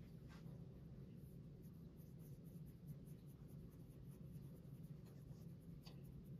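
Faint, soft rubbing of palms rolling a small piece of shortbread dough into a ball, over a steady low hum.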